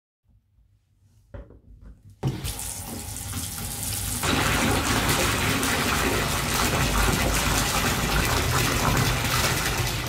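Bathtub filling from the tap: water pouring into the partly filled tub and churning the surface in a steady rush. It starts about two seconds in and grows louder about two seconds later.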